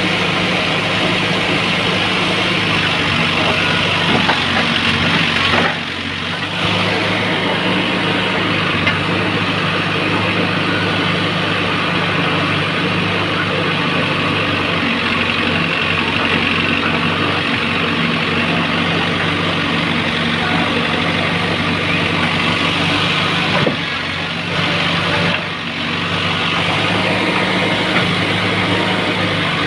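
Heavy diesel engine of a backhoe loader running steadily near idle, with two brief dips in level: one about six seconds in and another near twenty-five seconds.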